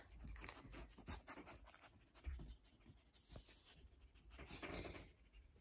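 Near silence with faint scratchy rustling and a few light clicks scattered through it.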